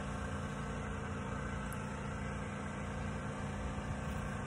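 A steady mechanical hum with a constant low drone, like a running motor or engine idling.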